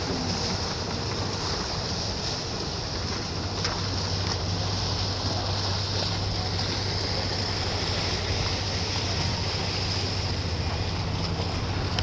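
Boat under way on open water: a steady low engine hum over a constant rush of water and wind.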